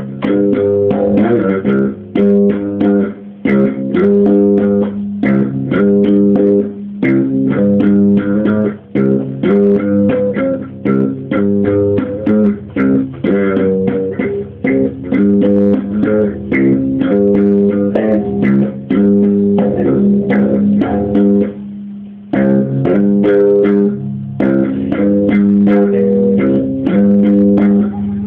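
Electric bass guitar played slap-style: fast, percussive runs of slapped and popped notes over a steady low held tone, with a brief pause about three quarters of the way through.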